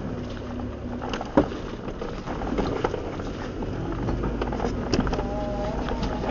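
4x4 crawling slowly up a rocky trail: a steady low engine drone under irregular knocks and rattles of the body and suspension as the tyres go over the rocks, with one sharp knock about a second and a half in.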